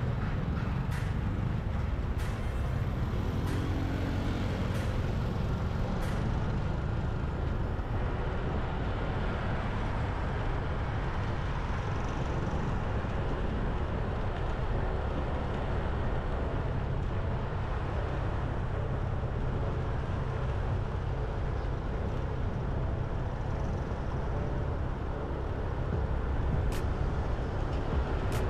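Road traffic noise heard from a moving vehicle: a steady low rumble of engines and tyres, with a few light clicks in the first several seconds.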